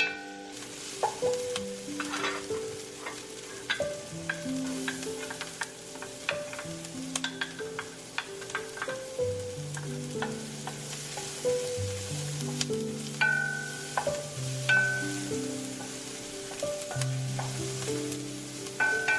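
Food sizzling in a frying pan, with a utensil clicking and scraping against the pan as it is stirred, over background music with a slow stepping bass line.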